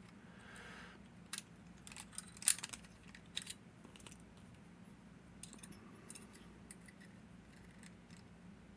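Light metallic clicks and ticks from a six-lever padlock's parts being handled and worked, irregular, with the sharpest click about two and a half seconds in and fainter ones later.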